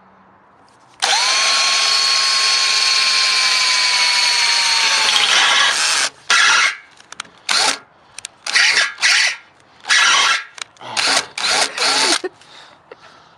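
Electric drill boring a hole through the car's body panel: one long run of about five seconds whose whine sags in pitch under load, then a string of short trigger bursts. The drill is not getting through easily.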